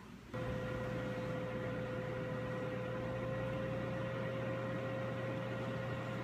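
12-quart Cook's Essentials air fryer switching on about a third of a second in and running steadily as its cooking cycle starts: an even fan whoosh with a low hum and a faint steady whine.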